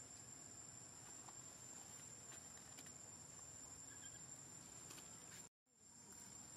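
Faint forest-floor ambience: a steady, high-pitched insect drone over soft hiss, with a few faint ticks. About five and a half seconds in, the sound drops out completely for a moment.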